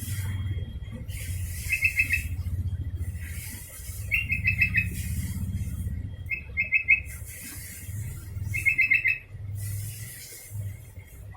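Sooty-headed bulbul (kutilang) singing: four short phrases, each a quick run of notes, about every two seconds, over a low hum.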